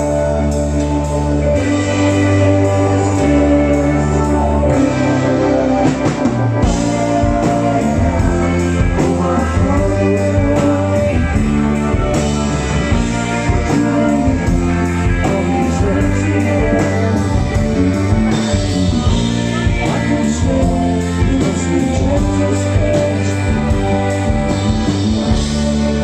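Rock music with electric guitar, drum kit and singing, playing steadily with a regular beat.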